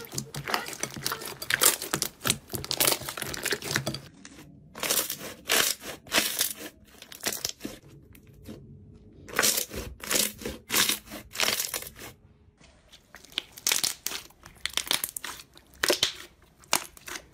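Slime being squeezed, stretched and pressed by hand: irregular wet squelches, pops and crackles, with short lulls about four and eight seconds in.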